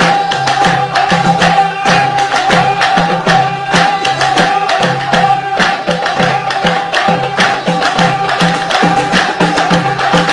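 Background music: a fast, steady hand-drum beat over a held high tone.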